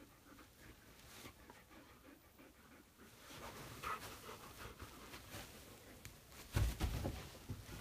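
Two Alaskan malamutes and a kitten playing on a bed: faint dog panting and rustling of the bedding. A louder thump comes about two-thirds of the way through as a dog shifts its weight.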